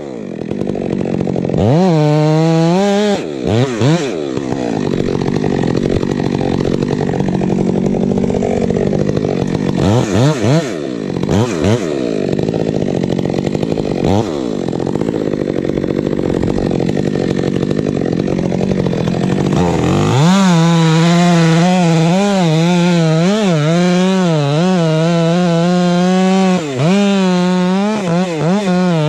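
A Stihl MS 462 chainsaw, a 72 cc two-stroke fitted with a Westcoast Saw Bark Box dual-port muffler, running at high revs while cutting through a thick trunk. Its engine note sags and recovers over and over as the chain loads up in the cut.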